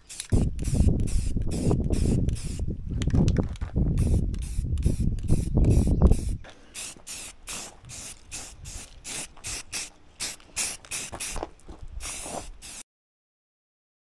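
Aerosol rattle can spraying primer in short bursts, about two or three a second, with a loud low rumble under the first six seconds. The sound cuts off abruptly near the end.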